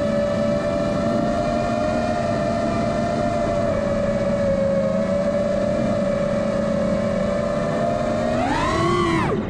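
Electric motors of a radio-controlled aircraft running at a steady pitch with a whine. About eight seconds in, the pitch rises briefly, then drops steeply almost to nothing near the end.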